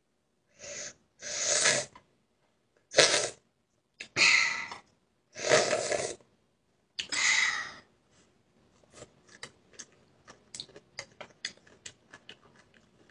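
Eating sounds: six loud, breathy bursts over the first eight seconds, then a string of quick, soft mouth clicks of chewing.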